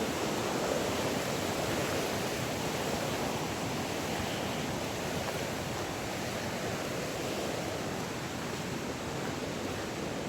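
Rushing water of a mountain stream or waterfall, a steady, even hiss.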